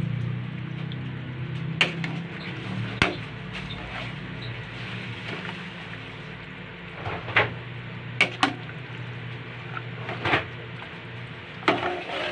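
A large metal spoon stirring macaroni and vegetables in a metal pot, clinking sharply against the pot's side several times at irregular intervals, over a steady low hum.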